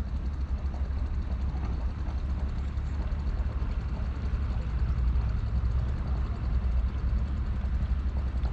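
Boat engine idling at low speed, a steady low rumble.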